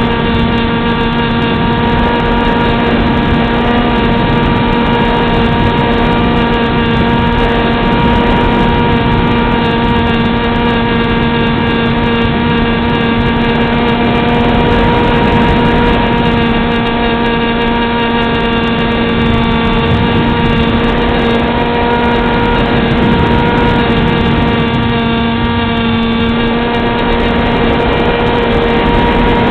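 Motor and propeller of a Beta 1400 radio-controlled model plane running steadily in flight, a constant droning tone with rushing air noise, picked up by a camera mounted on the plane.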